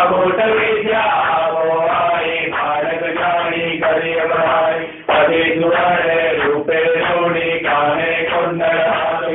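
Hindu devotional chant to the goddess, a voice singing long pitched phrases with short breaks over music, with one clear break and restart about five seconds in.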